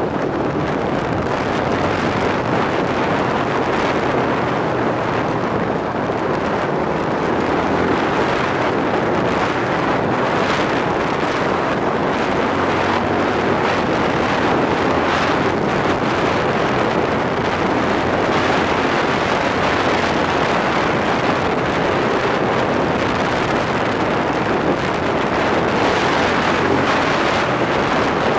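Quad (ATV) engine running steadily on the move, mixed with wind rushing over the microphone.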